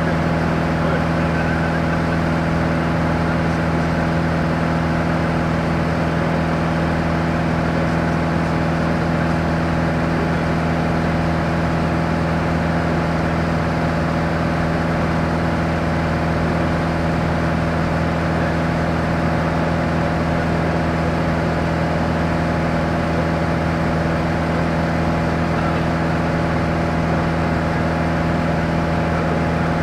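Light touring aircraft's piston engine and propeller running steadily in cruise, heard from inside the cabin as an even drone at one unchanging pitch over a rush of air noise.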